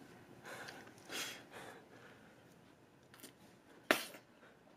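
A man's quiet breaths, then a short sharp puff of breath through the lips about four seconds in.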